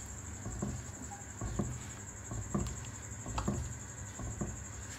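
Silicone spatula stirring milk and custard in a pan, scraping and swishing through the liquid in soft strokes about once a second, over a continuous high-pitched whine.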